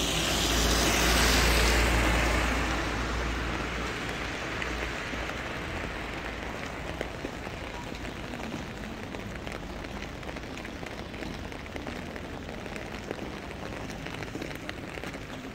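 Steady rain falling, with many separate drops ticking on surfaces. A vehicle passes near the start, its rush loudest in the first two seconds and fading by about three seconds in.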